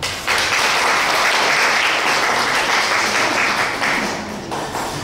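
Audience applauding, breaking out right away and easing off about four and a half seconds in.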